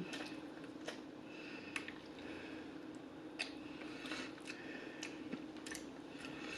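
Close-up chewing of extra crispy fried chicken: soft, irregular crunches and wet mouth clicks over a faint steady hum.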